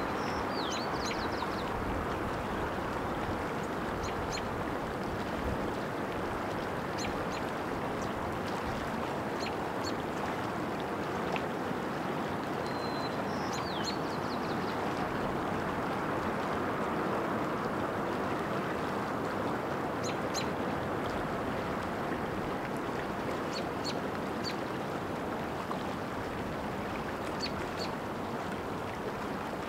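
Steady rush of running water from a mountain stream. Over it a small bird sings three times, a short high whistle followed by quick falling notes, with scattered high chirps in between.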